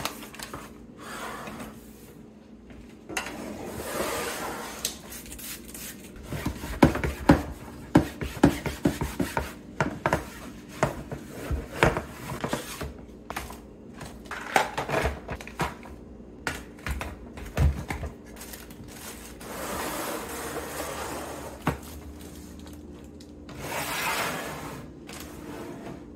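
Hands packing snacks into plastic storage: a run of light knocks and clicks as plastic-wrapped cracker stacks and packets are set into a plastic container and basket on a counter, with rustling of plastic wrap and wrappers. A faint steady hum lies underneath.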